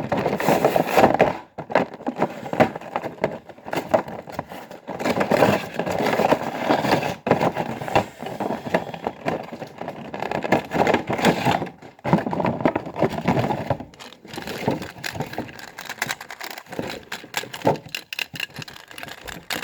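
Toy packaging being handled and opened by hand: plastic and cardboard crinkling and crackling, with irregular clicks and snaps.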